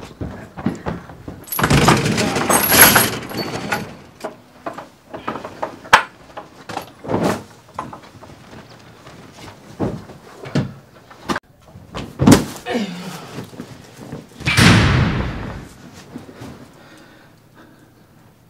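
A door and an iron-barred cell gate being opened and slammed shut, with footsteps and sharp knocks between. Longer stretches of clatter come about two seconds in and again near fifteen seconds, and the sound dies away near the end.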